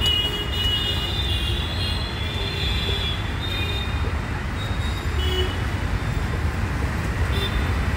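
Steady low rumble of street traffic. A thin, high squeal runs through the first three seconds or so, with short squeaks later.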